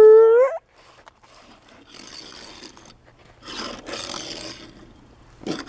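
A short, loud vocal engine-like note that rises at the end, then three brief bursts of rasping scrape as a small die-cast toy car's wheels are rolled and drifted across a surface.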